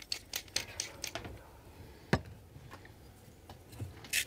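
Hand-twisted spice mill grinding salt and pepper over a bowl: a run of quick grinding clicks, about five a second, for the first second or so. A single sharp knock follows about two seconds in.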